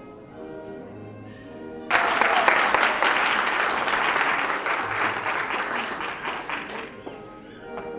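Audience applause starts suddenly about two seconds in and dies away after about five seconds, over orchestral music.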